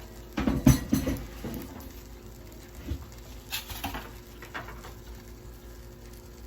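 Bread rolls frying in butter in a pan, sizzling faintly, with a quick clatter of clicks and knocks about half a second to a second and a half in and a few scattered taps after.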